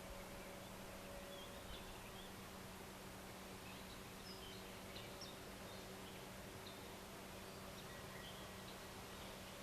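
Faint outdoor ambience: scattered short bird chirps over a steady hiss and a low, steady hum.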